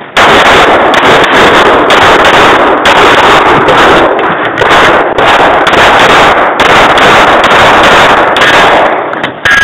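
Smith & Wesson M&P pistol fired in quick strings of shots during a USPSA stage, loud enough to overload the recording. The firing stops about nine seconds in.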